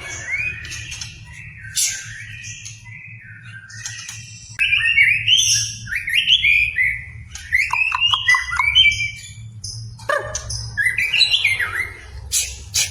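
White-rumped shama (murai batu) in full song, running through a fast, varied string of whistled phrases and quick sweeping notes, louder from about a third of the way in, over a steady low hum.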